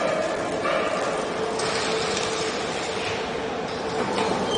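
Steady din of factory machinery running, with a steady hum under a broad rushing noise.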